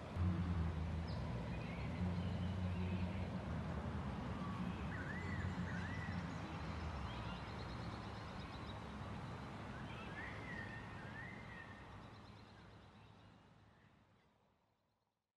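Birds calling, with a few sweeping, warbling calls and rows of quick ticking trills, over a steady low hum. The sound fades out near the end.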